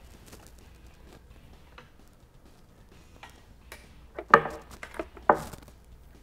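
Handling noise from a speaker cable being worked and plugged into a powered mixer: scattered light clicks and rustle, then two louder clunks about four and five seconds in.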